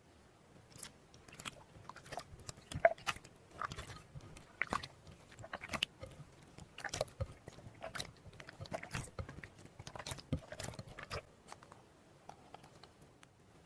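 Slime being squeezed and pressed by hand, with irregular crackles and wet pops from air trapped in it, a few a second.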